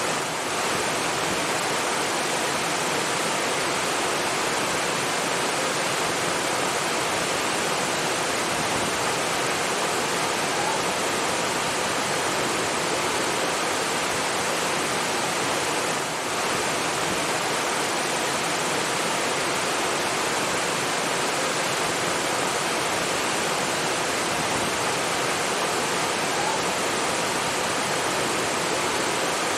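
Steady rushing water, a continuous even hiss of falling or flowing water, dipping briefly in level twice.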